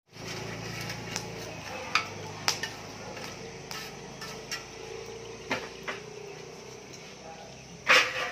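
Scattered clinks and knocks of dishes and metal utensils, with a louder clatter near the end.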